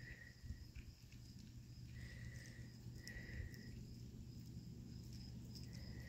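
Faint outdoor ambience of insects chirping: a steady high pulsing with short, even trills recurring every second or so, over a low steady rumble.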